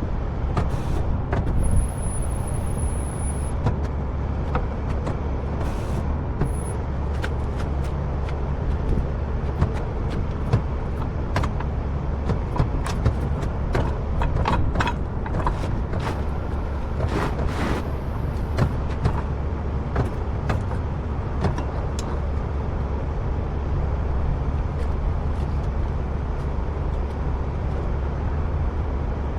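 Heavy truck's diesel engine running steadily, with scattered knocks and clanks on top, most of them around the middle.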